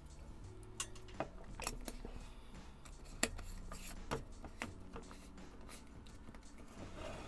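A scattering of small, sharp clicks and taps, about ten of them at uneven intervals, the loudest about three seconds in, over a faint low drone.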